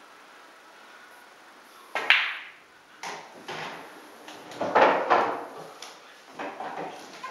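A pool shot on a home pool table: the cue tip strikes the cue ball about two seconds in, followed at once by the sharp click of the cue ball hitting an object ball. Over the next few seconds a series of knocks and thuds follows as the balls roll off the cushions and the object ball drops into a pocket.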